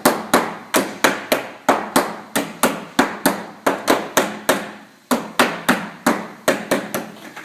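Repeated blows, about three a second with a brief pause about five seconds in, tapping the stitched cellular PVC ogie arch sections together onto their connectors.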